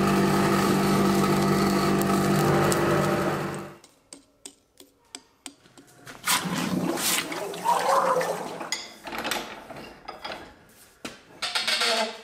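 Coal forge's electric blower running steadily with a humming tone, cut off about four seconds in. A few light clicks and knocks of metal tongs follow. From about six seconds the hot hammer head is plunged into a quench tank, with several seconds of uneven splashing and bubbling.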